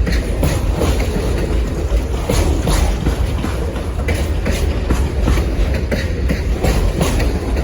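Passenger train's railcars rolling past close by: a steady, loud rumble of steel wheels on rail, broken by irregular clicks and knocks as the wheels cross the rail joints.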